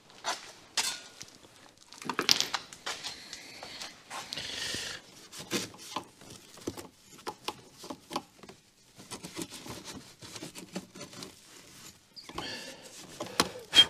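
Irregular clicks, knocks and rustling scrapes of hands and tools working loose a car's intake pipes around the air mass meter.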